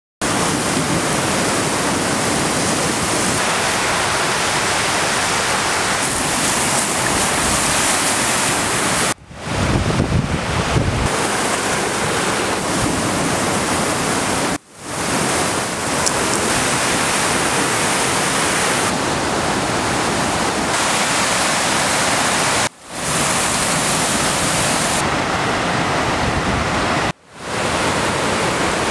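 Black River at flood stage rushing through rapids: a steady, loud roar of whitewater that cuts out for a moment four times. About ten seconds in there is a short low rumble.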